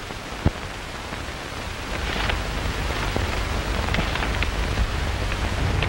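Steady hiss and scattered crackle of an old optical film soundtrack, with a sharp click about half a second in and a low hum coming in about two seconds in.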